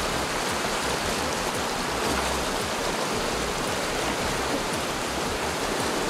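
River rapids rushing over boulders: a steady, even hiss of fast white water.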